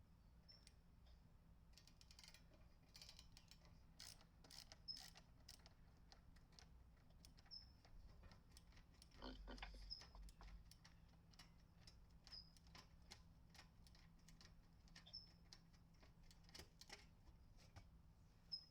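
Near silence with faint, scattered clicks and taps, and a short high chirp that repeats about every two and a half seconds.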